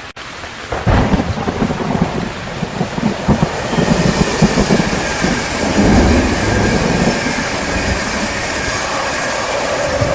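Steady rain with a thunderclap about a second in, followed by rolling thunder rumbling unevenly for several seconds before easing off.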